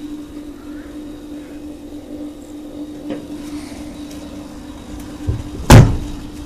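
A steady low hum, then a light knock and, just after it, a single heavy slam near the end.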